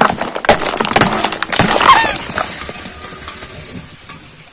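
A car tyre crushing a row of filled rubber balloons and a soda can: a rapid run of pops, crunches and splatters with a few short squeaks, loudest about two seconds in. It then gives way to a fading fizz from the spilled foam.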